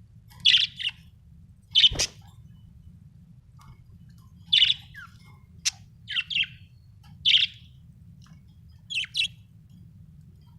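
Budgerigar chirping in short, sharp chirps, often in quick pairs, with pauses of a second or more between them. A brief knock sounds with one of the chirps about two seconds in.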